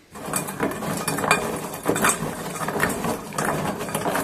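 Peeled shrimp being rubbed and kneaded by hand with potato starch in a stainless steel bowl: a busy run of quick, irregular squishes and knocks against the metal bowl.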